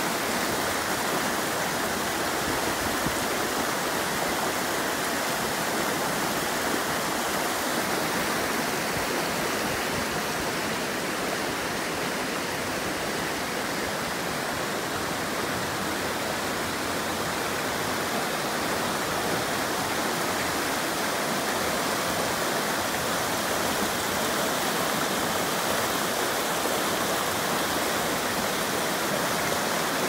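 Stream water pouring over a small weir and rushing over rocks: a steady, even rush with no pauses.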